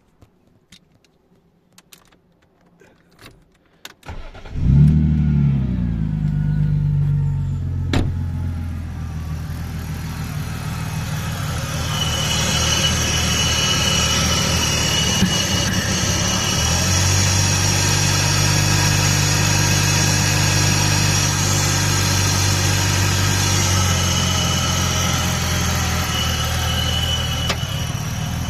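BMW E46 engine starting about four seconds in after a few light clicks, flaring up briefly and then settling into a steady idle. It starts right up with the EWS immobilizer bypassed by a 20 amp fuse in the EWS connector.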